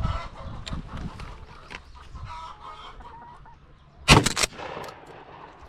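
Laying hens clucking, with a short burst of sharp clattering knocks about four seconds in.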